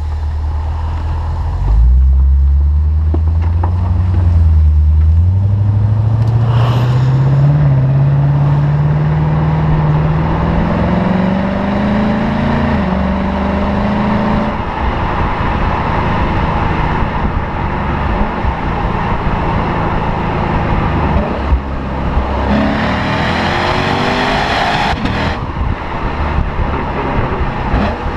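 Lexus RC F's 5.0-litre V8 under hard acceleration: about two seconds in the engine note jumps and climbs steadily through the gears, with brief dips at the shifts, for roughly twelve seconds. It then falls back to a steady cruising sound, with another short rising pull near the end that cuts off sharply.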